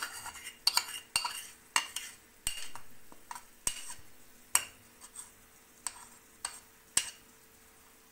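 Wooden spatula stirring chicken and vegetables in a non-stick wok, scraping and knocking against the pan in separate strokes about once a second. The strokes come less often toward the end.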